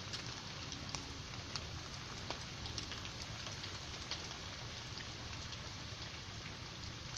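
Steady rain falling, with single drops ticking sharply now and then.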